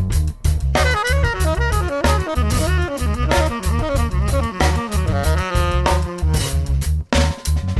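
Background music: an upbeat instrumental with a steady pulsing beat and bass line and a busy melody over it.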